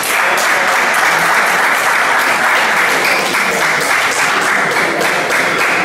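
Spectators clapping: loud, steady applause from a crowd in a hall.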